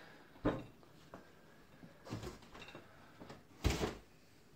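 Handling noise from a wooden observation hive: three dull knocks with light rubbing between, the loudest knock about three-quarters of the way through as the hive is set down.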